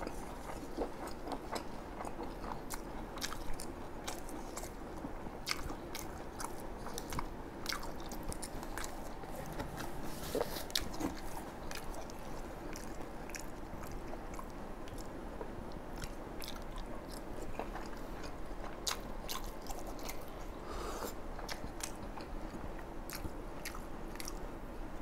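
A person chewing a mouthful of food close to the microphone, with a steady stream of small, irregular wet clicks and smacks from the mouth.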